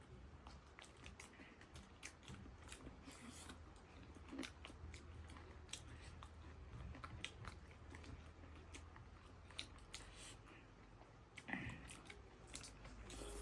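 A person eating: faint, irregular chewing and crunching mouth sounds, with a louder click cluster near the end.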